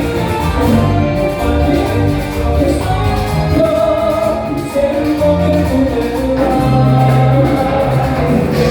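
Live cumbia band music, with a steady bass line and sustained melodic notes.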